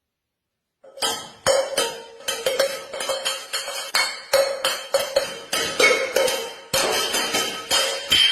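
Rapid metallic clinking and striking, several hits a second, each ringing briefly, beginning abruptly about a second in; it sounds like utensils or dishes being struck, or percussive music.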